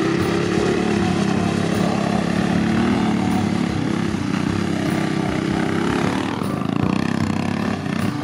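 Coleman BT200X mini bike's small single-cylinder four-stroke engine running under throttle as it is ridden over loose gravel, its pitch rising and falling, with a brief drop about six seconds in.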